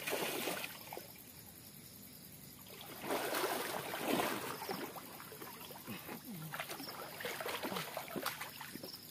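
Water splashing and sloshing as a person swims through a small outdoor pool. One splash at the start, a short lull, then louder splashing from about three seconds in that carries on more softly.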